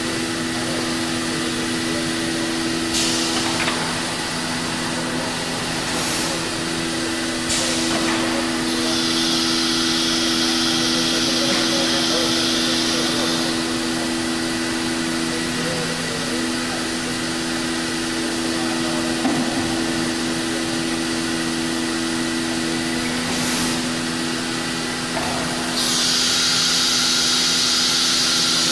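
Biesse Rover 35 CNC machining centre running with a steady mechanical hum. A few short knocks come through, and a higher hiss comes in twice: for about four seconds near the start and again near the end.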